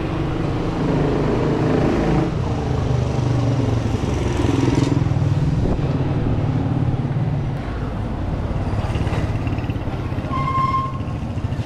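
Small motorcycle engines running close by in street traffic, a steady low engine hum that swells and eases as motorcycles and a motorcycle tricycle pass. A short high beep sounds near the end.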